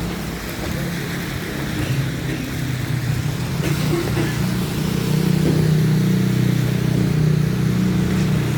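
A motor vehicle's engine running steadily, growing louder about five seconds in as it comes closer.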